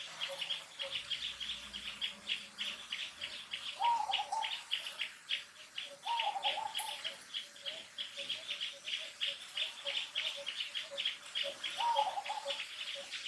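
Birds chirping rapidly and steadily in high, closely repeated notes, with a softer low note pulsing about four times a second. Three short tonal calls stand out, about four, six and twelve seconds in.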